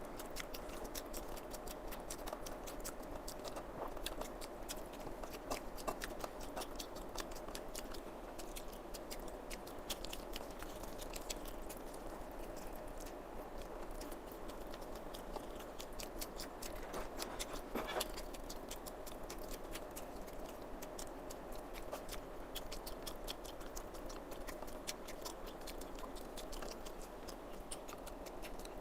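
A person chewing a mouthful of rice and chicken curry, with a steady run of small mouth clicks and smacks and a few louder ones along the way.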